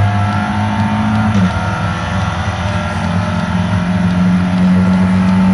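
Race car engine heard from inside the cockpit, running hard at high, steady revs, with a brief dip in pitch about a second and a half in before it holds steady again.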